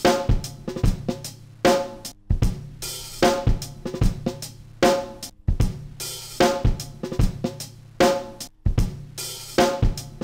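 Background music led by a drum kit: a steady beat of kick drum, ringing snare and cymbals.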